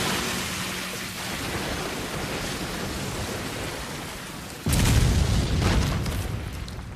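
Dense rushing spray of liquid, a blood-spatter sound effect that sounds like a downpour. About five seconds in, a sudden heavy splash-like impact comes in and then slowly fades.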